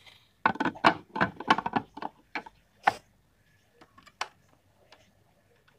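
Rapid clicks and rattles of a plastic food processor bowl and blade assembly being handled with dry sprouted wheat grains inside. The clicks are dense for about the first three seconds, then thin out to a few single clicks.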